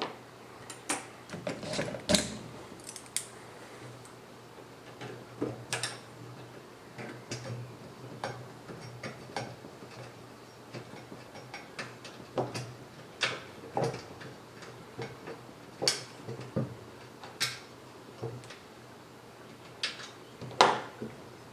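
M6 screws and small metal parts handled and fitted by hand into an aluminium extrusion frame: scattered, irregular light clicks and taps, the loudest about two seconds in and near the end.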